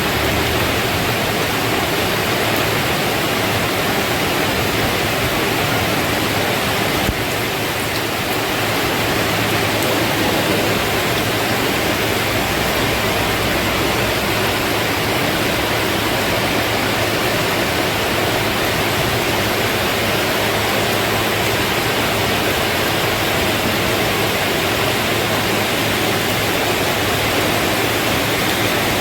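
Rain falling steadily: a loud, even hiss with no let-up.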